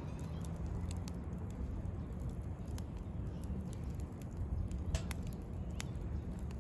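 Wood campfire crackling, with sparse sharp pops over a low steady rumble; the strongest pops come about three, five and six seconds in.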